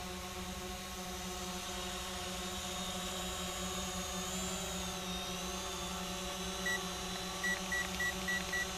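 Visuo mini quadcopter's electric motors and propellers whining steadily in a hover, the pitch wavering briefly about halfway through. Near the end come six short beeps at one pitch, the last five in quick succession, from the remote controller as its trim is stepped to stop the drone drifting.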